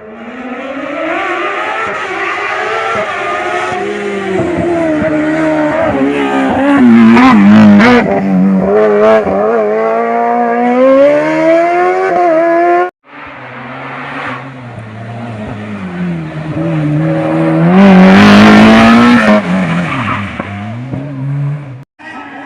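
A race car's engine revs up and falls back again and again as the car brakes and accelerates through slalom chicanes, with tyre squeal on the hardest turns. The sound breaks off suddenly about 13 seconds in and picks up again with another run.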